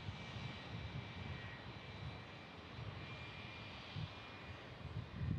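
Jet engines of a climbing Airbus A320-family airliner after takeoff, a steady distant roar with low rumbling swells.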